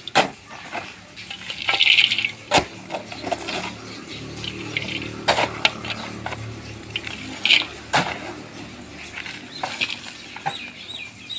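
A mattock striking and breaking up dry, lumpy clay soil in irregular blows every second or two, with scraping and clinks as the blade hits grit and stones. The clay is being pounded loose to make tandoor clay.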